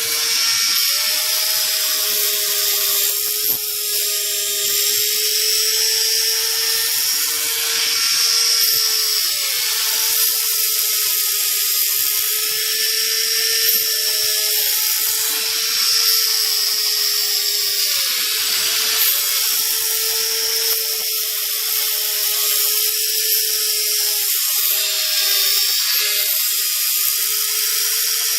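Kyosho Moto Racer RC motorcycle's rear brushless motor running, a steady whine drifting gently up and down in pitch over a gritty high hiss that swells and fades every second or two. This is the abnormal noise from the motor, still present after its bearings were replaced.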